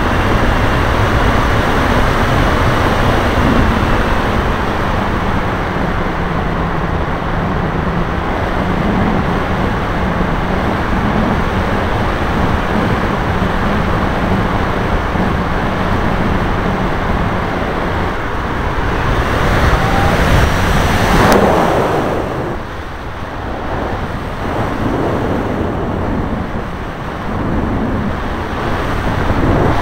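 Rushing wind noise from airflow over the onboard microphone of a Max 1500 motor glider in flight, with a steady low motor hum that stops about two-thirds of the way through; after that the airflow noise swells and falls unevenly.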